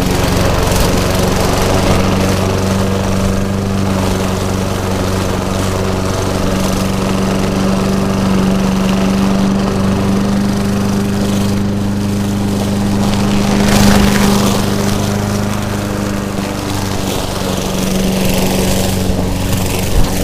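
Lawn mower engine running steadily at a constant speed, briefly swelling louder about two-thirds of the way through.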